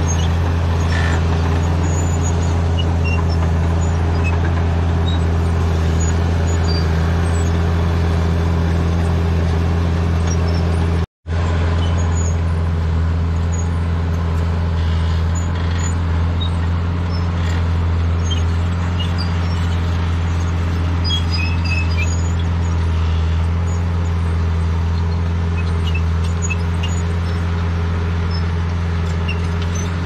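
Crawler bulldozer's diesel engine running steadily with a low, even hum as it pushes brush and soil. The sound drops out for an instant about eleven seconds in.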